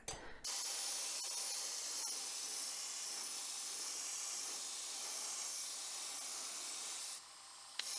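Airbrush spraying transparent Spectraflame-style candy paint onto a zinc-plated die-cast car body: a steady hiss of air and paint that starts about half a second in and drops away near the end.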